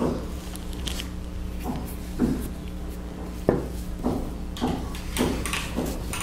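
Small handling sounds of gluing metal bottle caps: a plastic glue bottle squeezed and set aside, and crown caps tapped and pressed together on a table, a series of short soft knocks and rustles with one sharp click about three and a half seconds in, over a low steady hum.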